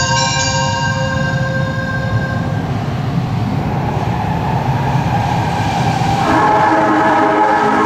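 Osaka Subway 70 series linear-motor train rumbling up to the platform through the tunnel, with the tail of the station's bell-like arrival chime ringing out over it in the first two seconds. About six seconds in, a cluster of whining tones sets in as the train runs into the station.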